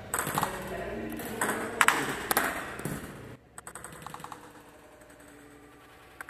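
Table tennis ball being struck with forehand drives against backspin: a string of sharp plastic clicks of ball on racket and table in the first three seconds, then only faint ticking.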